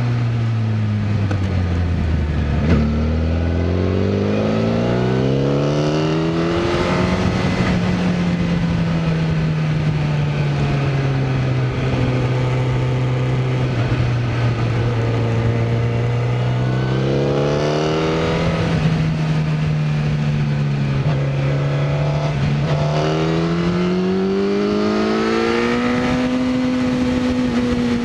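Sport bike engine heard from on board: the revs drop over the first few seconds as the bike slows, climb again as it accelerates, hold fairly steady, then rise twice more in the second half. A steady rush of wind and road noise runs underneath.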